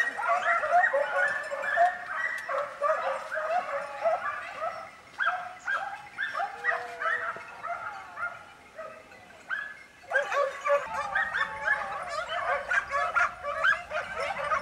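A pack of hunting hounds giving tongue: many overlapping short, high yelps and bays in chorus, thinning out and fainter for a few seconds in the middle before the full chorus returns.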